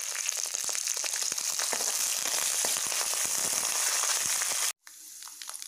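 Hot oil crackling and sizzling in a steel kadai as a tempering of peanuts, lentils and chillies fries with freshly added curry leaves, dense sputtering pops over a steady hiss. It cuts off suddenly near the end and comes back as a quieter sizzle.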